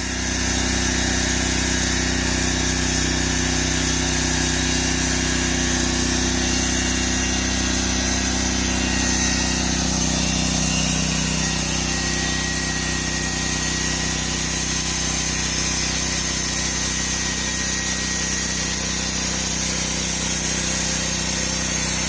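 Portable sawmill running steadily, its engine held under load as the blade cuts lengthwise through a log to saw 2x6 boards.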